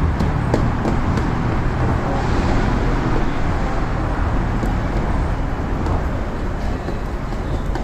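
Steady vehicle rumble with a few faint clicks near the start.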